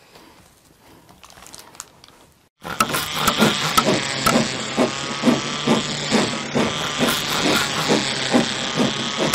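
Faint clay handling, then about two and a half seconds in a loud dubbed-in construction sound effect cuts in abruptly. It is a rhythmic run of rasping strokes, about two to three a second, over a steady noisy bed.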